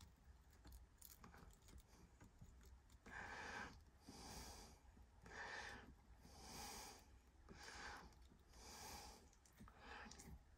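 Faint, even breathing, one soft breath about every second from about three seconds in. Small clicks come before it as wires are pushed into a plug socket's terminal.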